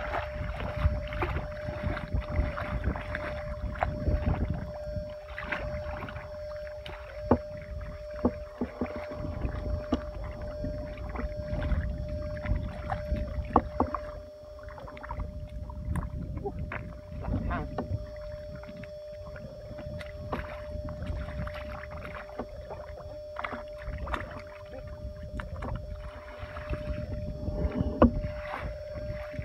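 Legs and hands wading through thick, watery mud: irregular sloshing, sucking and splashing with frequent short slaps. A faint steady hum runs underneath.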